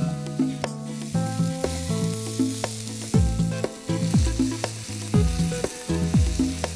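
Background music of plucked notes with a ticking beat, joined about three seconds in by a deep falling bass beat, over the sizzle of mushroom masala frying in a pan as it is stirred with a wooden spatula.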